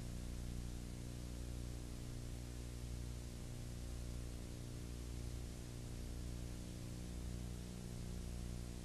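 Steady low electrical hum with a hiss over it and no other sound: the background noise of a transfer of silent home-movie film, which carries no recorded sound of its own.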